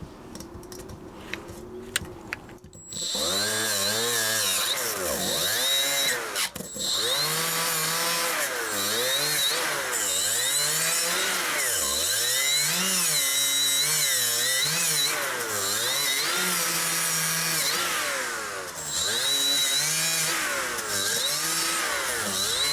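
Milwaukee M12 Fuel angled die grinder at its lowest speed, running a wire wheel against rusty brake parts. It starts about three seconds in, and its motor pitch sags and recovers over and over as the wheel is pressed on and eased off. It stops briefly once, near the end of the first quarter, then runs on.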